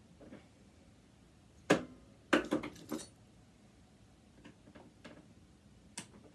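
Screwdriver clinking and clicking against the metal of a sewing machine while working at its screws: a sharp click, a quick run of metallic clinks about half a second later, and one more sharp click near the end.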